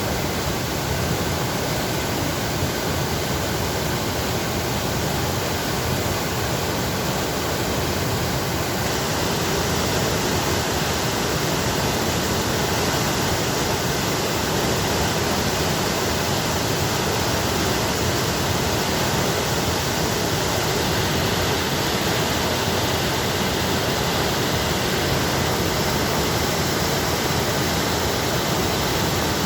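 Water pouring through a sluice gate, a steady rushing noise with no let-up, a little brighter from about nine seconds in.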